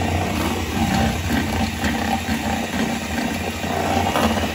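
Electric hand mixer running steadily at speed, its beaters whisking softened butter and powdered sugar together in a stainless steel bowl.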